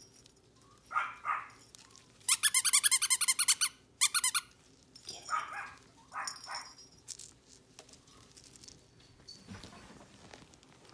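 Yorkshire terrier puppies yipping as they play-fight: short yips about a second in and again around five and six seconds in, with a loud, rapid run of high-pitched yips from about two to four seconds.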